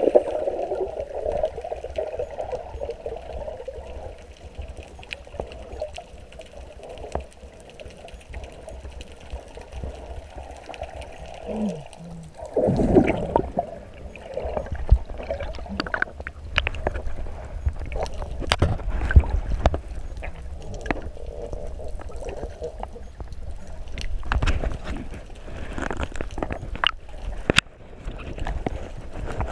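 Muffled underwater water sound heard through a GoPro's waterproof housing: bubbles and gurgling at first, then from about halfway a deeper churning, as at the surface, with scattered sharp clicks and knocks.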